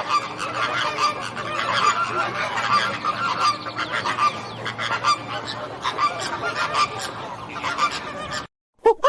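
A flock of geese honking, many calls overlapping. It cuts off suddenly about a second before the end, and a new run of separate calls begins.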